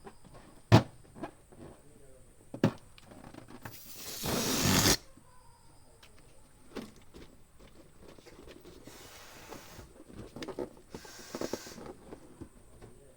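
Balloon being handled and blown up with a hand pump: two sharp clicks, then a loud rush of air about four seconds in, and two softer rushes of air near the end, with faint rubbery squeaks in between.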